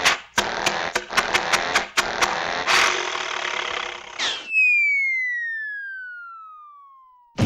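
Cartoon sound effects: a noisy, rattling mechanical clatter with sharp clicks several times a second, which stops about four seconds in. Then a single pure whistle slides steadily down in pitch for about three seconds, the classic cartoon falling whistle.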